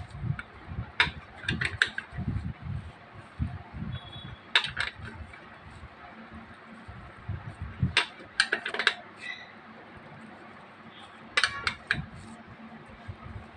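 Metal ring spanner clinking against the saddle clamp bolt on a bicycle seat post as the clamp is tightened: scattered clicks and knocks in short clusters, with dull handling thumps in the first few seconds.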